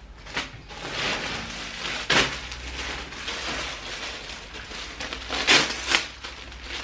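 Clear plastic clothing polybags crinkling and rustling as they are handled and opened, with sharper crackles about two seconds in and again around five and a half to six seconds.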